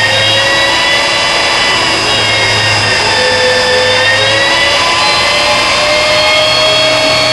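ACER E-Lathe 21" speed lathe running at speed: a steady, loud machine whine with several high tones that drift slowly upward in pitch.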